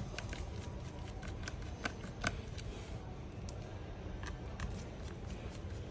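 Small screwdriver clicking irregularly as screws are taken out of a smartphone's internal frame, over a low steady hum.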